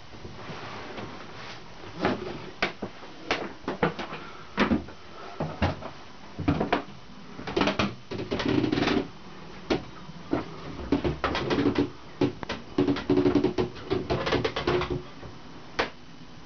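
Irregular knocks, clicks and short creaks from someone moving about a small wooden boat cabin, the hollow knocks typical of footsteps and handling on a timber cabin floor and joinery. Two thicker clusters of creaky knocking come about halfway through and again near the end.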